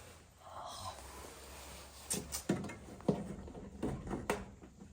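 A brief soft rustle or hiss, then a series of sharp clicks and knocks from hands working on a gas furnace's rubber hoses and fittings, which are being checked for a restriction.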